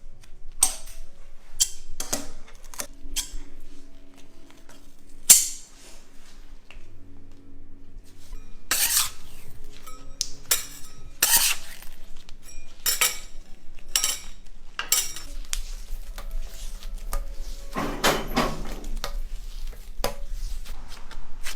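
Kitchen tools clinking, knocking and scraping on a hard work surface as candy is shaped by hand. The knocks are irregular, mixed with a few longer scrapes.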